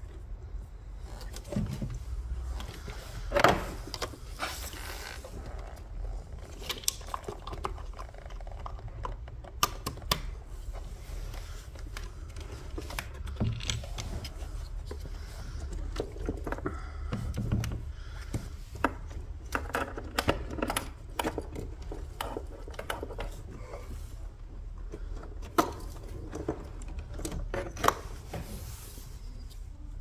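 Hands working a car's wiring harness and plastic connectors at the front SAM module: irregular clicks, rustles and scrapes of wires and plastic, the loudest about three and a half seconds in, over a low steady hum.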